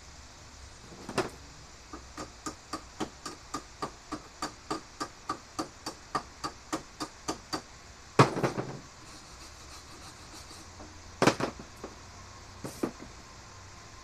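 Hammer tapping on the welded steel of a garage door spring hook, an even run of about four strikes a second with a slight metallic ring. A louder clatter of metal about eight seconds in, then a few single knocks near the end.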